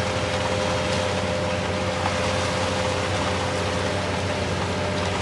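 An engine running steadily with a low hum and a faint steady whine, under a constant hiss.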